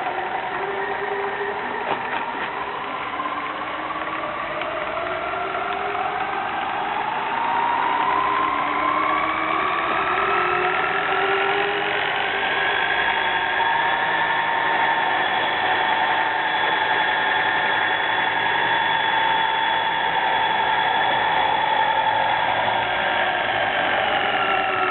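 Laboratory powder mixer with stainless steel Becker blades running, its motor whine rising in pitch as it speeds up over the first dozen seconds. It then holds a steady high speed and begins to slow, pitch falling, near the end.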